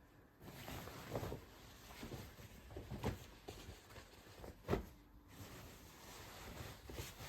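Household handling sounds: a soft rustling with a few knocks of objects being set down, the sharpest about two-thirds of the way through.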